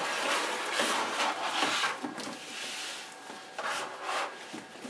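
Plastic Beyblade stadium scraping and rubbing against a cardboard box as it is pulled out, in rough bursts for about two seconds, then a couple of shorter rubs near the end.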